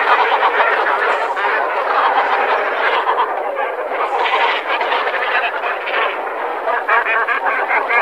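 Great cormorants calling: a dense, unbroken chorus of overlapping calls, as from many birds at once.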